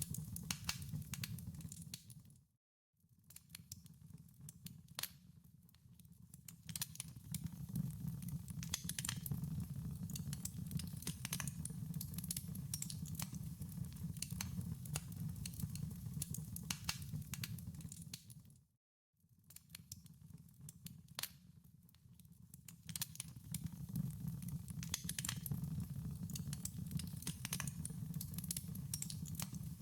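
Wood fire in a fireplace, crackling and popping over a low steady rumble. The sound cuts out to silence twice for a moment, about three seconds in and near nineteen seconds, and fades back in each time.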